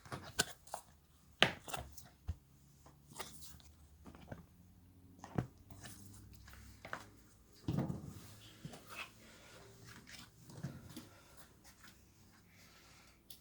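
Rubber washing machine door seals being handled: irregular rustling, scraping and creaking, with a few sharp knocks, the loudest about a second and a half in.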